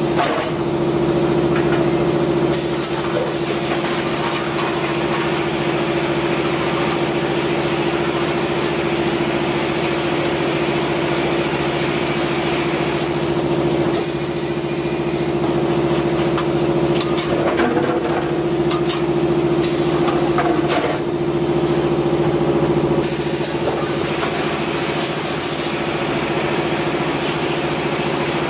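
A 5-gallon bottle rinsing-filling-capping machine running with a steady motor hum. Two long spells of hissing, and a few clacks midway, as the filling heads work on the bottles.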